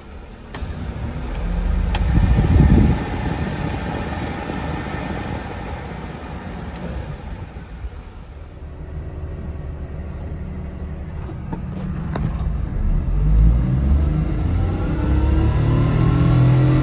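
A couple of switch clicks in the cab of a 1999 Daihatsu Hijet Jumbo kei truck as the A/C is switched on, then steady fan and engine noise in the cab. Near the end the small three-cylinder engine revs up, its pitch rising.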